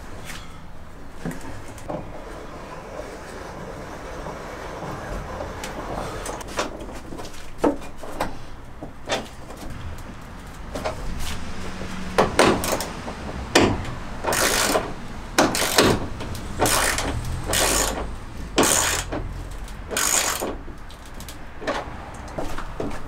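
Ratchet wrench tightening a bolt through a timber batten on the van's steel wall. Quiet handling and a few clicks at first, then from about halfway a run of short bursts of ratchet clicking, about one a second.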